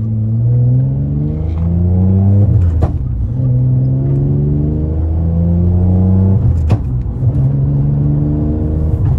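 Nissan Maxima's 3.5-litre V6, on a 3-inch ISR single-exit exhaust, heard from inside the cabin with the windows up as the car accelerates through the gears of its six-speed manual: the engine note climbs, drops at an upshift about three seconds in and again near seven seconds, then climbs once more.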